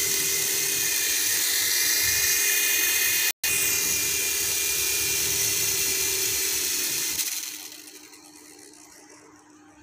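Small electric motors of a hand-held toy RC helicopter whining steadily as its rotors spin, with a brief cut-out about three and a half seconds in. The whine winds down about seven seconds in as the throttle comes off.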